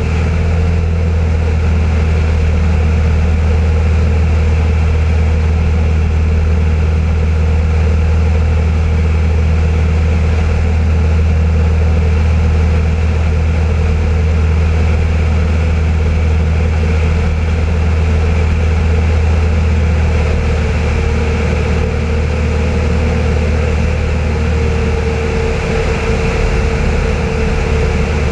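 A floatplane's piston engine and propeller drone steadily, heard from outside the aircraft in the airflow during a landing approach. The low drone eases slightly about two-thirds of the way through.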